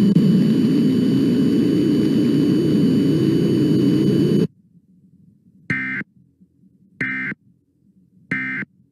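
Loud rumbling noise with a faint steady high whine, cut off abruptly about four and a half seconds in. Then three short, identical electronic data bursts about 1.3 s apart: the digital header of an Emergency Alert System broadcast.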